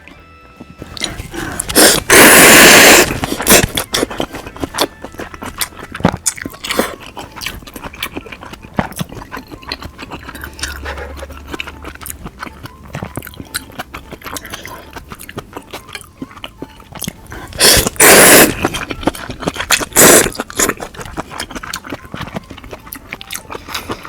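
Close-miked eating: wet chewing with a steady run of mouth clicks, broken by loud slurps about two seconds in and again about three-quarters of the way through.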